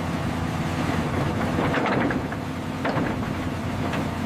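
Excavator's diesel engine running steadily under load, with rock and rubble clattering a few times as the bucket digs into the pile, most around the middle.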